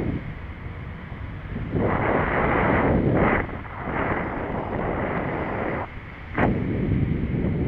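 Wind buffeting a moving cyclist's camera microphone, a noisy rush that swells about two seconds in, drops off briefly around six seconds, then comes back.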